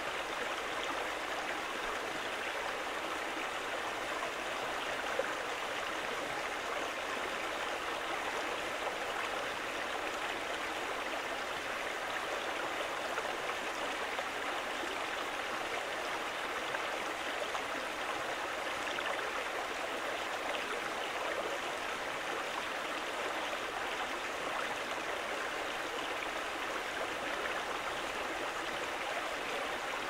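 Shallow stream flowing over rocks, a steady even rush of running water with a light babble.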